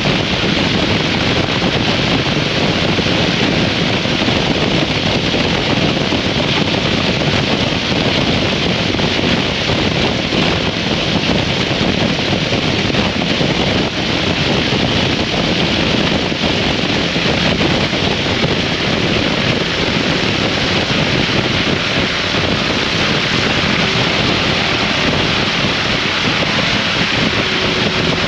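2003 Harley-Davidson V-Rod motorcycle riding at a steady speed: wind rushing over the microphone covers the engine and road noise. The sound stays steady with no sudden changes.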